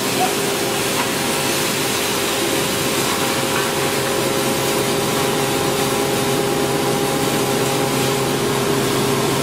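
Hammer mill with its cyclone blower running steadily while crushing palm kernel shells: a dense, even mechanical rush with a steady hum under it.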